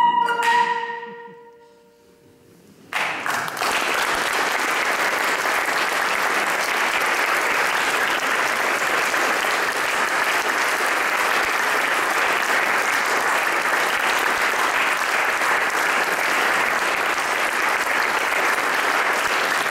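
A singer's final high note and the harp's last ringing tone fade away over the first two seconds. About three seconds in, the audience starts applauding, steady clapping that keeps going.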